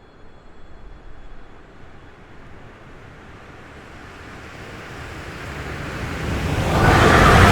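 Passenger train led by a ChS7 electric locomotive approaching at speed: a rushing rumble that grows steadily louder, turning loud about seven seconds in as the train nears.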